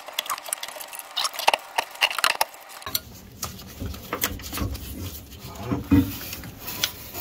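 Repeated light metallic clinks and clatters of hand tools and loose parts being picked up, handled and set down.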